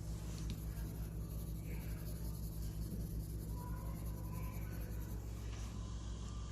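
Coloured pen scratching back and forth on paper in quick strokes, over a steady low hum; the scratching stops about five and a half seconds in.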